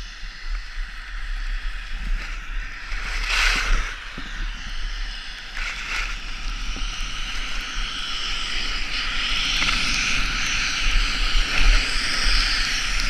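Skis sliding and scraping over packed snow on a downhill run, a steady hiss that grows louder toward the end, with a sharper scrape about three and a half seconds in.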